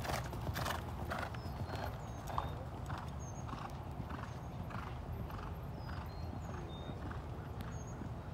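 Cantering horse's hoofbeats on sand arena footing, an even rhythm of a little under two strides a second.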